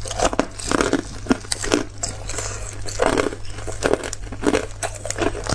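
Hard clear ice being bitten and chewed close to the microphone: a quick, irregular run of sharp cracks and crunches as the ice breaks between the teeth.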